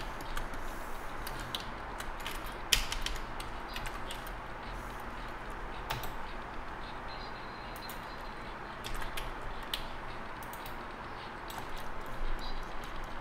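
Steady background hiss with scattered light clicks and taps from computer input devices on the desk, the sharpest about three and six seconds in.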